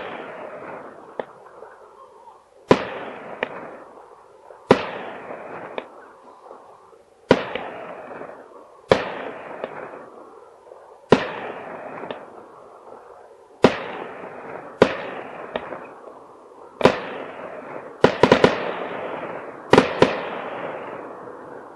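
Aerial fireworks bursting: sharp bangs roughly every two seconds, each trailing off in a rolling echo, with smaller pops in between and a quick run of several bangs near the end.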